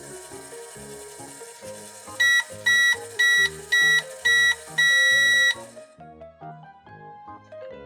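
Microwave beeping over light background music: five short high beeps about half a second apart, then one longer beep.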